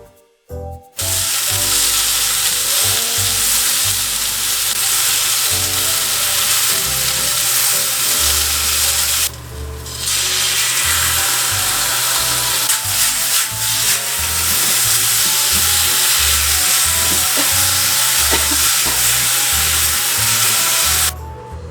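Food sizzling loudly in a frying pan over background music. The sizzle starts about a second in, drops away briefly near the middle, and stops just before the end.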